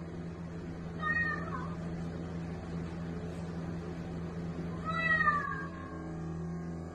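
Bengal cat meowing twice, a short call about a second in and a longer, slightly falling one about five seconds in, over a steady low hum.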